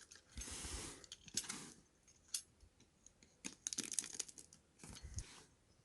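Faint rustling and scattered clicks of cardboard and plastic packaging being handled: a Funko Pop box and its plastic pop protector.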